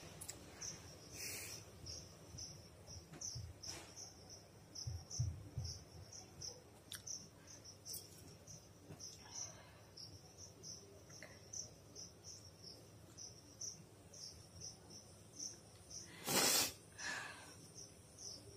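A person blowing their nose in a few short, breathy bursts. The loudest and longest comes about sixteen seconds in, with a weaker one right after it. Behind it, a cricket chirps steadily, two or three chirps a second.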